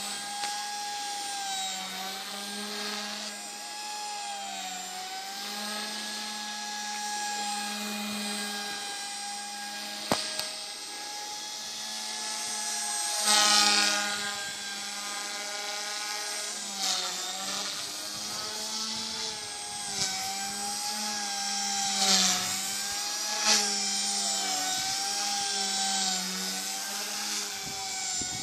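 Align T-Rex 150 micro electric RC helicopter flying aerobatics: a steady whine from its motor and rotor blades that wavers up and down in pitch as it manoeuvres, with a few brief louder surges.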